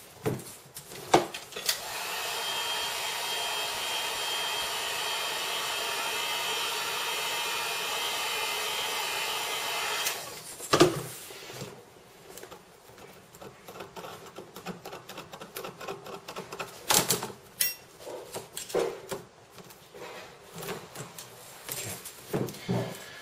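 A heat gun's fan runs steadily with a faint whine for about eight seconds, from about two seconds in until it cuts off at about ten seconds. Light clicks and knocks follow as the screen bezel and tools are handled on the work mat.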